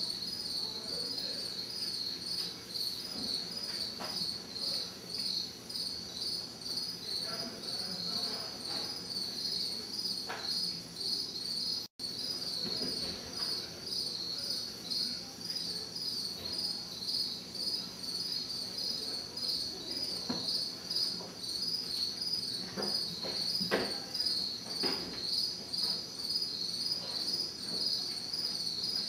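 Crickets chirping in a steady, evenly pulsed chorus, with a few faint knocks scattered through and one brief cut-out in the sound about halfway.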